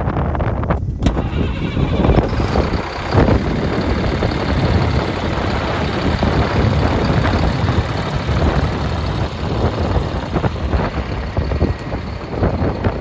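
Heavy dump truck's diesel engine idling steadily.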